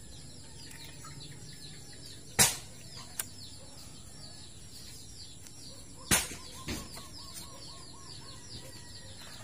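Small birds chirping over and over in quick falling notes, with two sharp knocks a few seconds apart, about two and a half and six seconds in, as a broad knife works on a goat carcass.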